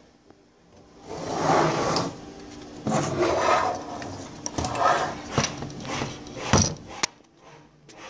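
Rubbing and scraping in strokes about a second long, three or four times, with a couple of sharp knocks later on.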